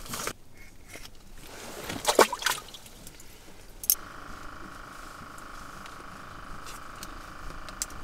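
Splashing and sloshing of water about two seconds in as a small perch is let go into the water, then a click and a steady faint hum for the rest of the time.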